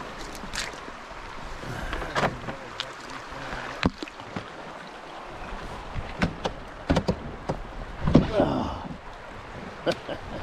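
Canoe working through a shallow gravel riffle: a series of sharp knocks and scrapes from paddle and hull striking river stones, over the steady wash of moving water, with the loudest scrape about eight seconds in.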